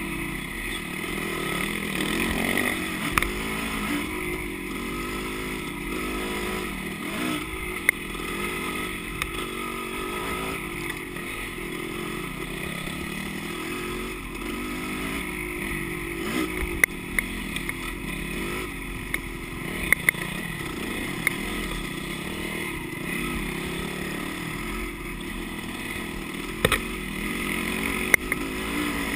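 Dirt bike engine running under riding load, its revs rising and falling with the throttle, with a few sharp knocks scattered through.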